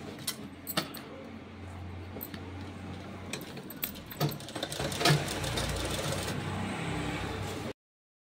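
Straight-stitch sewing machine running as it stitches a lining onto heavy fabric, a steady hum with light clicks. It gets louder about halfway through and cuts off abruptly just before the end.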